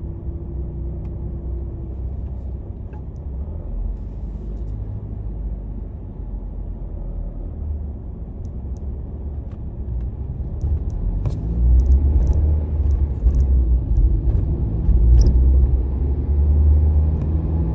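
A steady low rumble that grows louder about eleven seconds in, with a few faint clicks over it.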